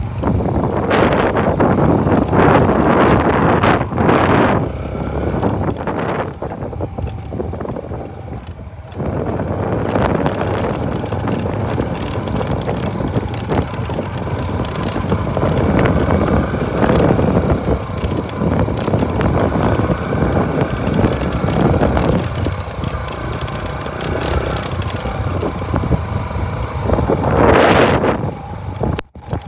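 Motorcycle running over a rough dirt track, with wind buffeting the microphone in gusts, strongest in the first few seconds and again near the end. The sound cuts out briefly just before the end.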